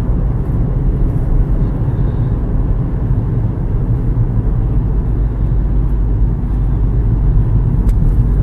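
Steady low rumble of a moving car heard from inside the cabin: engine and tyre road noise.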